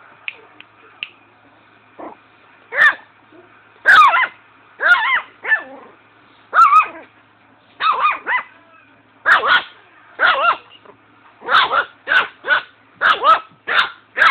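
A puppy barking repeatedly: about fifteen short, high-pitched barks, coming closer together in the second half, after a few small clicks at the start.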